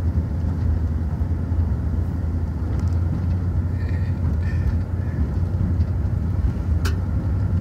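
Vehicle's engine and road noise heard from inside the cab while driving, a steady low rumble, with a single sharp click near the end.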